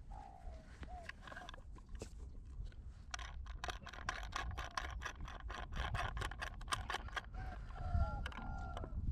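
A dense run of rapid clicks and crackles, thickest through the middle, with short bird-like calls near the start and again near the end.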